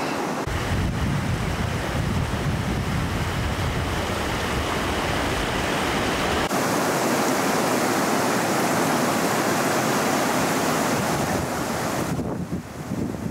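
Fast mountain river rushing over rocks in rapids, a steady hiss of water. For the first half, wind buffets the microphone with a low rumble; the rush dulls near the end.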